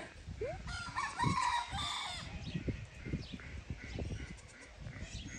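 A rooster crowing once, one call of about a second and a half starting just under a second in, over low rumbling noise.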